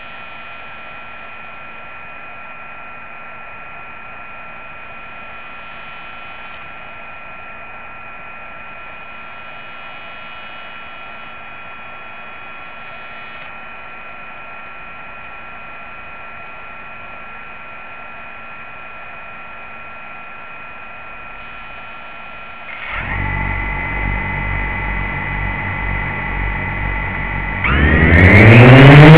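A small drone's electric motors heard through its onboard camera: a steady electronic whine while it sits on the ground, then about 23 seconds in the motors start turning at a steady idle. Near the end they spin up sharply, louder and rising in pitch, as the drone powers up for takeoff.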